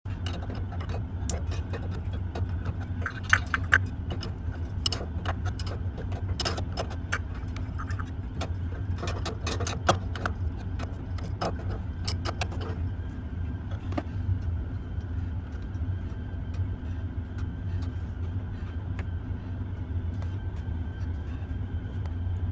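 Combination wrench clicking and clinking against the metal nut and tube fitting as the water heater burner's middle gas tube is tightened: quick irregular metallic ticks, many in the first half and only a few later, over a steady low hum.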